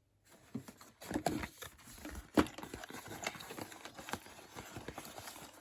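Hands opening and handling small cosmetic packaging: rustling with a run of light taps and clicks, and one sharp louder click about two and a half seconds in.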